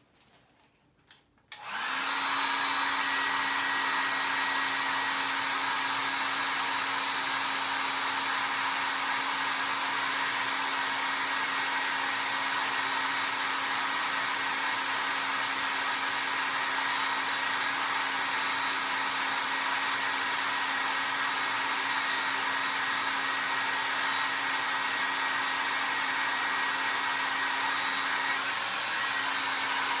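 Hair dryer switched on about two seconds in, then running steadily with a steady hum, blowing on freshly painted tape to dry the paint.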